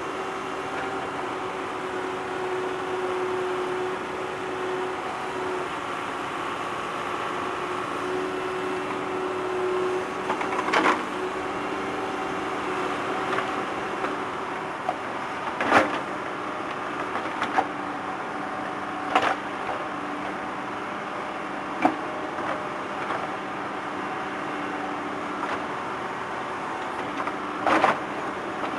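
Tractor digging equipment: the engine runs steadily while the bucket works the ground, and sharp metallic clanks sound about five times along the way.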